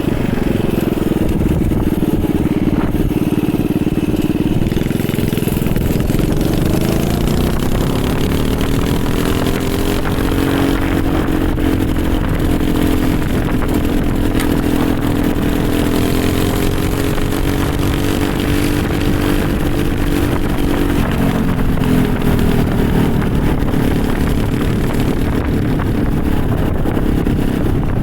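Small single-cylinder engine from a pressure washer, mounted on a home-built mini bike, running under way. It speeds up about a third of the way in, holds a higher steady speed, then drops back down near the end, over a low wind rumble.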